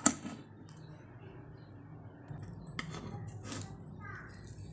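Metal clinks and taps on an aluminium idli steamer stand as it is handled. There is a sharp clink at the start, then a few lighter taps about three seconds in, over a steady low hum.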